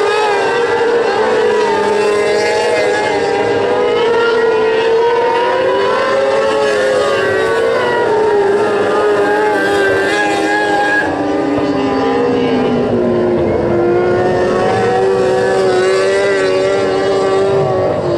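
Several winged open-wheel dirt-track race cars running laps together. Their overlapping engine notes rise and fall continuously as the cars work around the oval.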